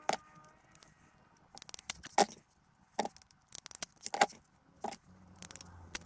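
Irregular sharp clicks and light metallic rattling from wire-stripping and crimping pliers and small loose crimp terminals being handled as wires are stripped and terminated.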